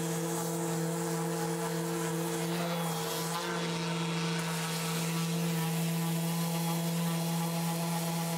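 Mirka random orbital sander fitted with a coarse 80-grit disc, running with a steady hum while sanding the carved wooden back of a guitar body.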